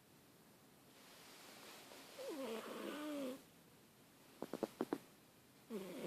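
Sleeping cat snoring: a breath builds from about a second in into a pitched, wavering snore that slides downward. A quick run of five clicking pulses follows, then another snore starts near the end.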